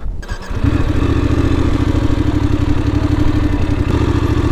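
Voge 900 DSX motorcycle's parallel-twin engine firing up about half a second in, then idling steadily.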